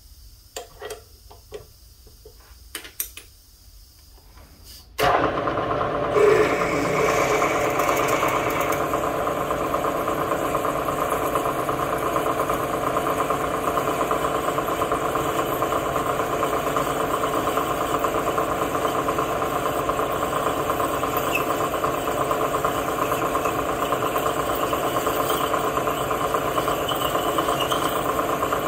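A few light clicks, then about five seconds in the Bridgeport milling machine's spindle starts and runs steadily, a 6.7 mm drill boring a pilot hole into 304 stainless steel.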